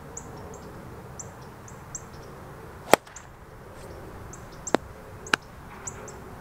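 Golf club striking a foam golf ball off fairway turf: one sharp click about three seconds in, followed by two fainter clicks a couple of seconds later.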